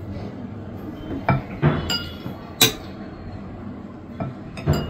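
Metal spoons clinking against ceramic bowls and plates during a meal: about six short, sharp clinks, the loudest a little past halfway.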